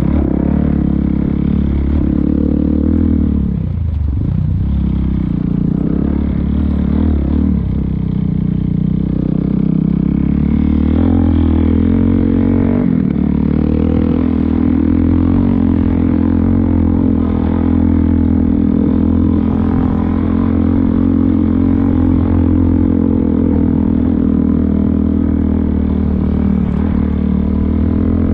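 Enduro dirt bike engine running hard up a hill climb, heard close from the bike itself. The engine note holds mostly steady, dipping and rising again about four seconds in and once more around thirteen seconds.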